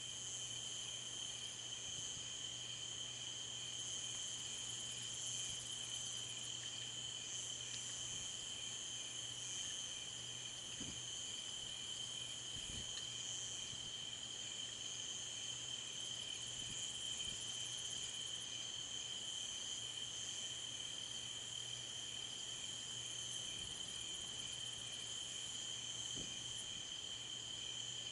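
Night chorus of crickets and other insects: steady high trills with a faster pulsing chirp beneath them, over a low steady hum.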